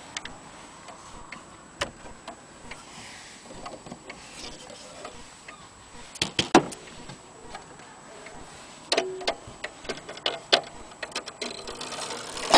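Antique Seth Thomas wall clock's brass pendulum movement ticking, with a few louder knocks and clatters about halfway through and again near the end.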